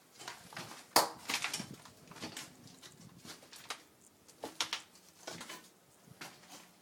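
Footsteps and debris crunching and knocking underfoot in a storm-wrecked house: irregular clicks and crackles, with one sharp knock about a second in.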